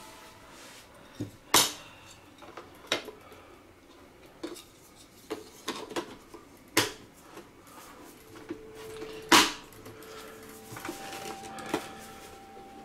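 Handling noise: irregular sharp clicks and knocks of hard plastic and a screwdriver being handled, with the loudest knock about nine seconds in.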